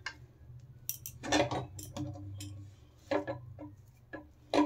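Puffed rice coated in sticky jaggery syrup crackling and rustling as hands scoop it and press it into balls in a metal pan, with scattered light clicks and clinks.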